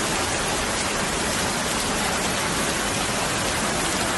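Heavy tropical-storm rain and floodwater rushing across a road, a steady even hiss that does not change.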